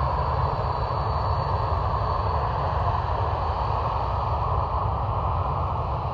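Steady jet engine noise from airliners around the airfield, a broad even rush with a low rumble underneath and a thin, steady high whine.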